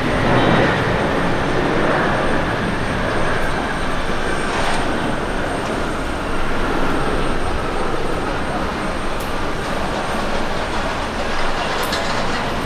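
Boeing 777-300ER jet airliner landing: a steady roar from its two GE90 turbofans through touchdown and the landing roll, with a faint whine that falls slowly in pitch.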